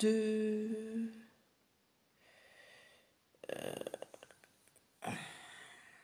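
A woman's voice holding a drawn-out hesitation sound for about a second, then breathing, with a quick run of soft clicks about three and a half seconds in and a sharper breath about five seconds in that fades away.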